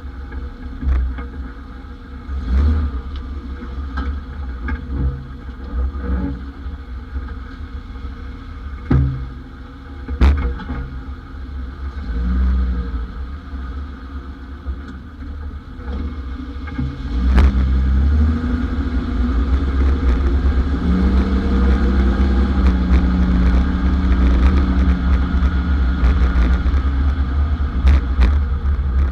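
1991 Ford Explorer on the move: a steady low road and engine rumble that gets louder about two-thirds of the way through, with a handful of sharp knocks scattered through it. The knocks are the unidentified suspension noise the owner is trying to track down.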